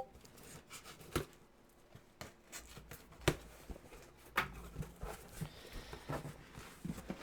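Cardboard shoe boxes being handled and opened by hand: scattered soft knocks, taps and rustles.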